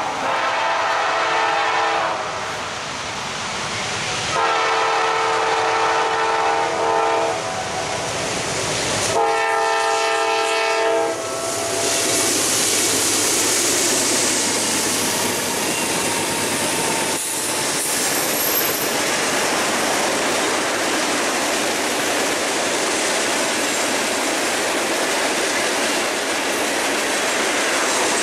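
Norfolk Southern freight train's locomotive horn sounding three long blasts, each about two seconds. From about 12 seconds in, the locomotives and a string of freight cars, including loaded hoppers, pass close by with a steady wheel-on-rail noise.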